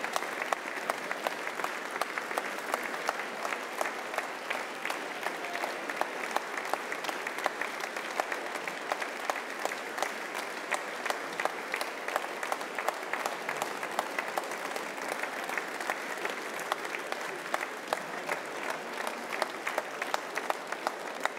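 Large audience applauding steadily, a dense mass of hand claps with sharp single claps standing out, acclaiming the end of a speech.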